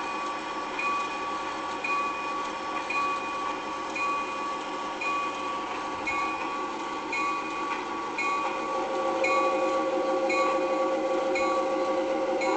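Railroad bell ringing steadily, about once a second, beside a train. In the last few seconds a steady train hum grows louder.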